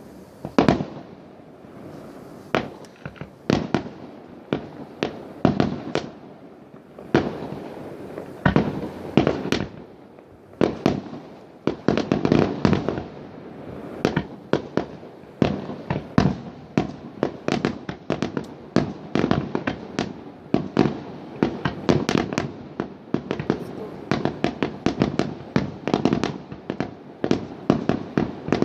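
Fireworks and firecrackers going off all around: a steady stream of bangs and cracks that grows denser, with several a second in the second half.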